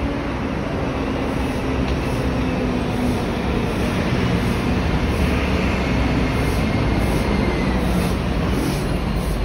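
City street traffic: buses and cars running along the avenue, a steady low engine drone.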